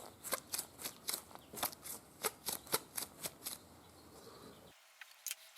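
Gloved hands handling and working motorcycle wires: a quick run of small sharp clicks and rustles, about four a second, which stops about three and a half seconds in, then one more click near the end.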